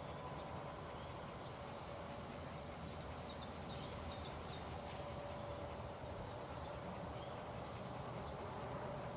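Quiet background noise with a faint, high chirp pulsing evenly about three times a second, and a few fainter chirps about three to four seconds in.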